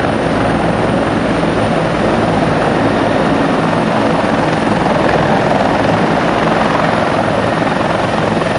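Formation of Bell 412SP helicopters flying low past together: a loud, steady blend of rotor and turbine noise from many aircraft at once.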